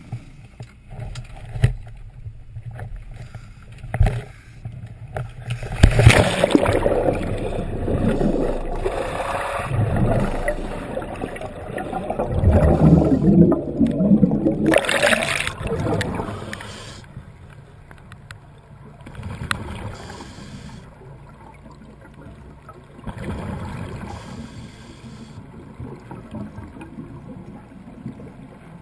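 A few sharp knocks of dive gear on a boat deck, then from about six seconds in a loud stretch of underwater bubbling and gurgling as scuba exhaust bubbles stream past, easing after about sixteen seconds to a quieter, muffled underwater hiss with occasional swells of bubbles.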